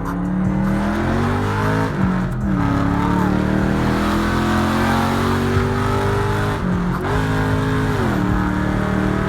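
Car engine running, its pitch dropping about two seconds in, then climbing and falling again near the end as it is revved and eased off.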